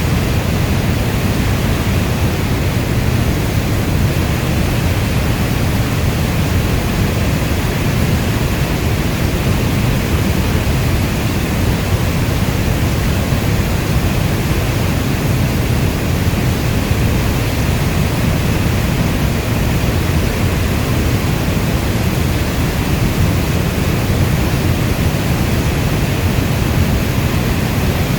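Steady rainfall: a dense, even hiss weighted toward the low end, with no thunder or single drops standing out.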